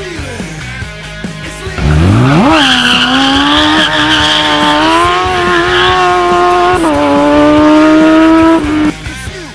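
A shifter kart's 1000cc Honda CBR Fireblade inline-four motorcycle engine launching hard. Its pitch sweeps up steeply about two seconds in, then holds at high revs with a couple of steps as it changes gear, over a few seconds of tyre squeal. It cuts off sharply near the end.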